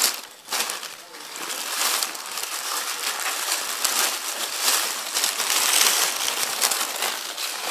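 Paper wrapping crinkling and rustling as a package is unwrapped by hand: a dense, crackly rustle with many small crackles, beginning about a second in.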